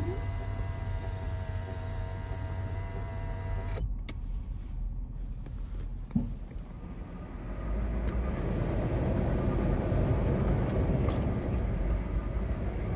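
Car driving slowly on a dirt track, heard from inside the cabin: a steady low rumble from the engine and tyres. A steady whine for the first few seconds stops abruptly, and then the road and wind noise grows louder from about two-thirds of the way in.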